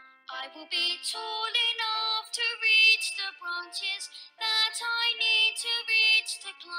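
A song: a high singing voice comes in just after the start over instrumental backing, following a few soft notes.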